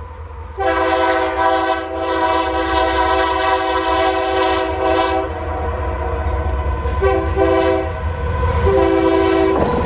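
Diesel freight locomotive sounding its air horn as it approaches: one long blast of about five seconds starting half a second in, then shorter blasts near the end. The low rumble of the oncoming train runs underneath.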